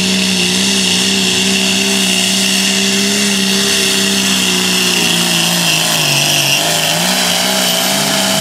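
Turbocharged diesel engine of a John Deere light pro stock pulling tractor running flat out under load, with a high whine over the engine note. In the last few seconds the engine's pitch sags and wavers as the sled's weight brings it down toward the end of the pull.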